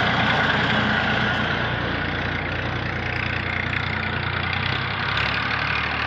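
Massey Ferguson 1035 DI tractor's three-cylinder diesel engine running steadily as it pulls a tine cultivator through dry soil, growing a little quieter as the tractor draws away.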